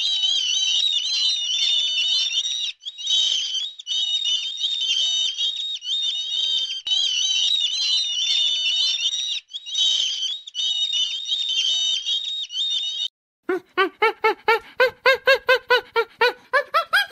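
A crowd of chicks peeping, many high chirps overlapping with a few brief pauses. About thirteen seconds in the peeping stops and a different animal starts a rapid run of repeated calls, about four or five a second, rising in pitch near the end.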